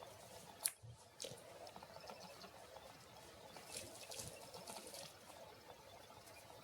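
Faint handling noises: one sharp click under a second in, then soft scattered ticks and light crackling.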